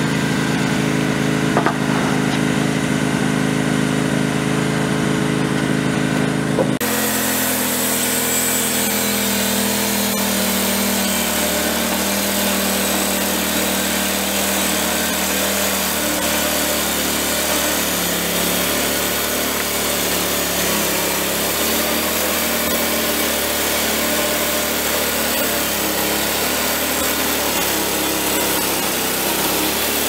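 Wood-Mizer LT15 bandsaw mill running with its new 4-degree band blade: first a steady engine note, then about seven seconds in a dense sawing hiss joins it as the blade cuts along a hardwood log, and it holds steady to the end.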